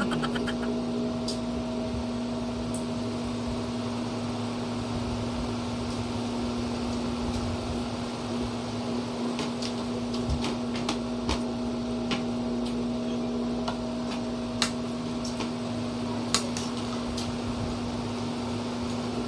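A steady electrical hum from a room appliance running, with scattered light clicks and taps from people eating duck by hand, chewing and handling bones and a spoon.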